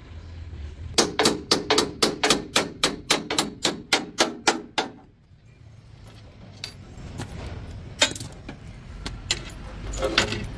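Hand hammer striking the steel chassis frame of a truck, a fast even run of ringing metal blows, about five a second for some four seconds, then a few scattered single knocks.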